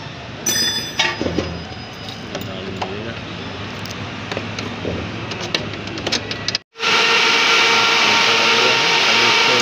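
A vehicle's electric radiator cooling fan running: a loud, even rushing whir with a steady whine that starts abruptly about seven seconds in. Before that there is low background noise with a few light clicks near the start.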